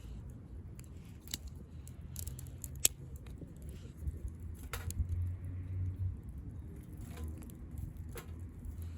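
Small wood fire crackling, with several sharp snaps spaced irregularly over a low, uneven rumble.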